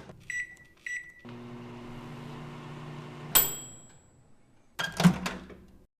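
Microwave oven cycle: a door click, two short keypad beeps, the oven humming steadily for about two seconds, then a single bright ding as it finishes. A short burst of noise follows near the end.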